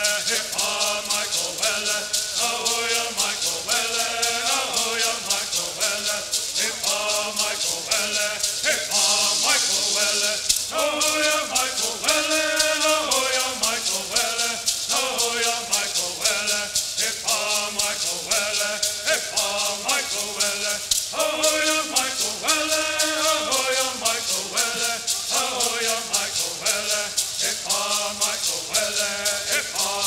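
Bird singing: a group of men sings in unison in repeating melodic phrases, keeping a steady fast beat with shaken gourd rattles.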